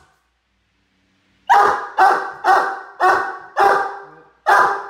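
Great Dane puppy barking: six loud barks at about two a second, starting about a second and a half in.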